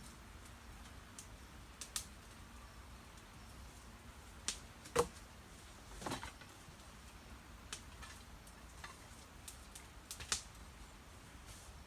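Sparse snaps and clicks of dry sticks and twigs being handled and broken, with a few louder sharp knocks about five, six and ten seconds in.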